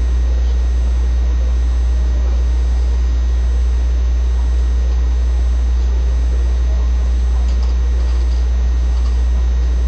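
Loud, steady low-pitched hum of background noise in the recording, unchanging throughout, with nothing else standing out above it.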